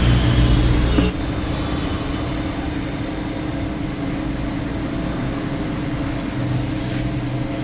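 Steady engine-like mechanical hum with a low drone. About a second in there is a click, and the hum drops to a quieter, even level.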